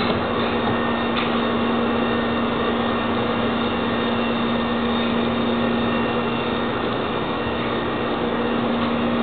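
Steady mechanical hum with a constant low tone from the lifeboat davit's winch hauling the enclosed lifeboat up into its davits, with a light click about a second in.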